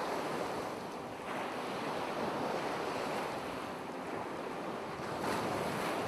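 Ocean surf: waves breaking and washing up a shore in a steady rush, with a swell about a second in and another near the end.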